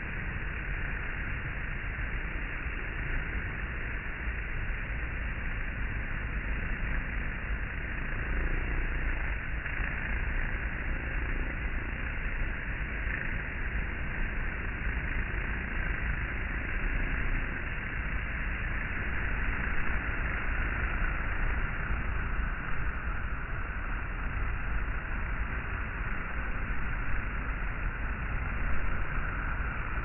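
Steady, dense buzzing of a honey bee swarm bivouacked in a mass on the front of a hive, thousands of bees humming together without a break.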